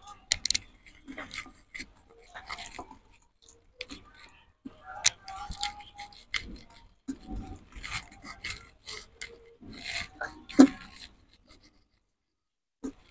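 Hands rubbing and patting wet masala paste into the skin of a whole raw chicken: irregular soft squishing and rubbing, with one louder slap late on.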